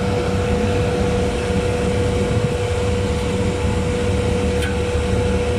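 Steady drone of running chiller plant machinery: a constant low hum with one steady, even tone over it.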